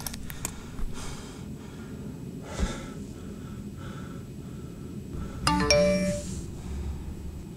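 A short electronic chime of several tones sounding together, about five and a half seconds in, over a steady low hum inside a car.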